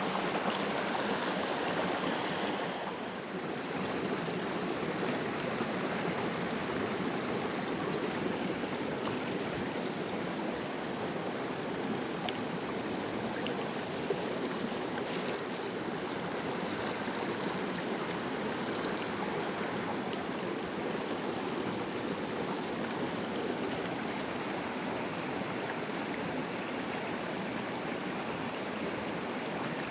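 Shallow stream flowing over rocks, a steady rushing and babbling of water.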